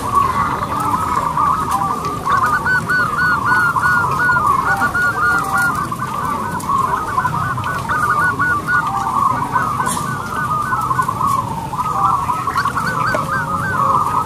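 Zebra doves (perkutut) cooing in a dense run of short, trilled, rising-and-falling coos, several voices overlapping at slightly different pitches.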